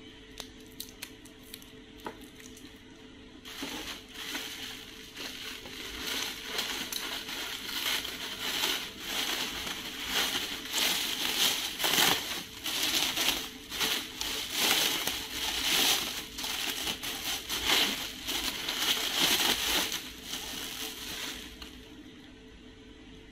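Plastic packaging crinkling and rustling as it is handled and unwrapped by hand. It starts about three and a half seconds in, after a few light clicks, and dies down shortly before the end.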